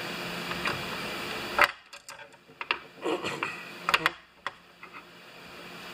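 Light clicks and knocks of small metal carburetor parts and linkage being fitted into a chain saw's fuel-tank housing, scattered through the second half. Before that, a steady hiss and hum cuts off abruptly with a sharp click about a second and a half in.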